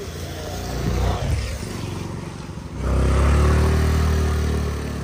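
A motor vehicle engine passing close by, swelling about a second in and then louder from about three seconds in, with a steady low hum that fades slightly toward the end.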